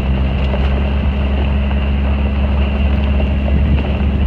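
Vehicle engine and road noise while driving: a loud, steady low rumble with an even engine hum.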